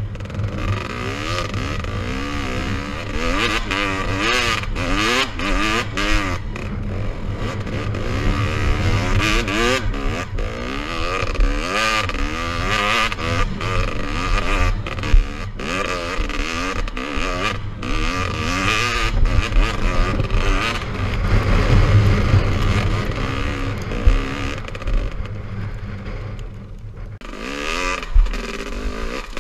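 Dirt bike engine revving up and down again and again while being ridden over rough rocky ground, with frequent knocks and clatter from the bike and the rocks. The engine drops back to a lower, quieter note near the end.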